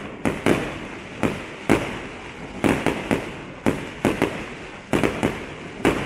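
Fireworks display: aerial shells bursting in a rapid, irregular run of sharp bangs, two or three a second, each trailing off in an echo.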